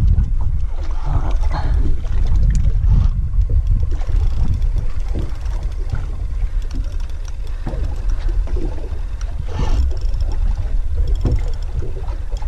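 Open-sea noise on a small boat: a heavy, steady low rumble of wind and water against the hull, with scattered small knocks and rattles from the boat and fishing gear.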